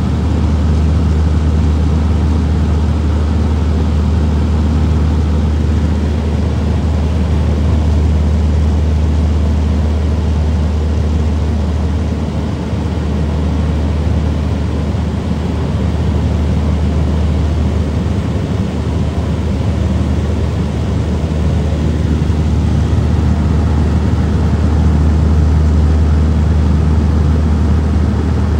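Steady drone of a small propeller plane's engine, heard from inside the cabin, with a strong low hum and an even rushing noise over it.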